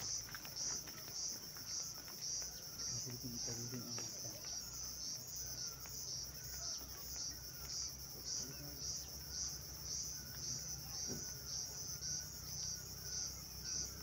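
Insects chirping steadily in an even pulsing rhythm, about two pulses a second, with a fainter, higher-pitched repeated falling chirp running alongside.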